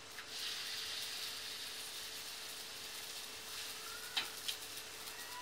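Qatayef batter cooking on a hot griddle: a faint, steady sizzle as the rounds set and their bubble holes open. There is a steady hum underneath, and two light clicks come about four seconds in.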